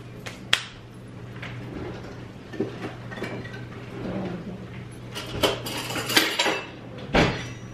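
Kitchen clatter of containers and dishes handled on a countertop: a couple of sharp clicks early on, a cluster of clinks about five to six seconds in and a dull thump near the end, over a steady low hum.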